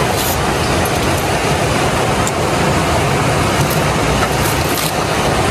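Loud, steady rushing of a river flowing over rocks, with a few faint clicks.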